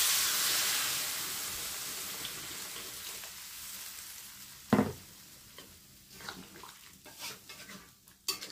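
Water poured into a hot wok of frying green beans and chilies hisses and sizzles, the sizzle dying away steadily over a few seconds. A single sharp knock comes about five seconds in, then a metal spatula scrapes and clinks in the wok near the end.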